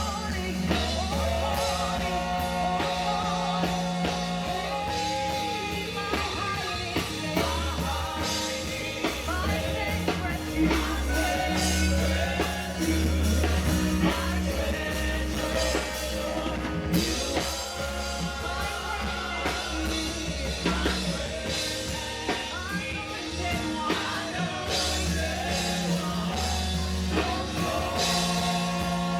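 Church praise team singing a worship song with a live band, sustained low bass notes under the voices.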